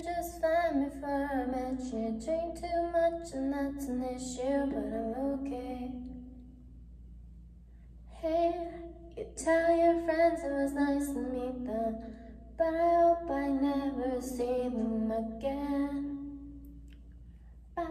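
A woman's voice singing a melody in phrases, with no backing music, breaking off for about two seconds near the middle.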